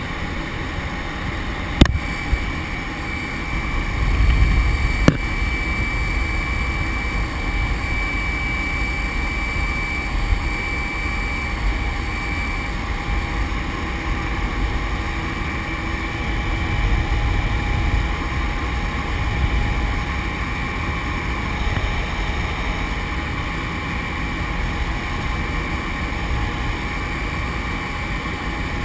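Steady engine and propeller drone with wind rush inside a small single-engine high-wing plane in flight, swelling with low buffeting now and then. Two sharp clicks sound in the first few seconds.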